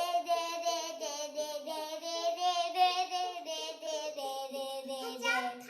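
A child singing a continuous melody in steps of pitch, breaking off near the end with a falling slide.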